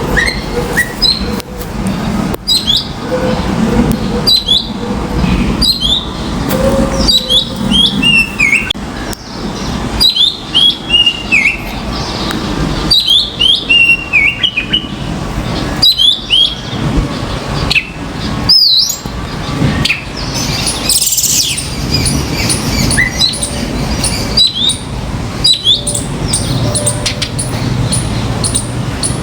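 Common mynas calling: a long series of short chirps and falling whistles, repeated every second or so, over a low background rumble.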